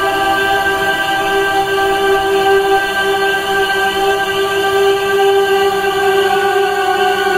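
Ambient music: a steady drone of long held tones, with no beat.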